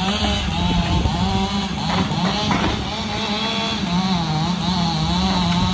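Diesel engine of a 14-ton tracked excavator running as it works a log grapple, its pitch rising and dipping as the hydraulics take load, with a couple of knocks about two seconds in.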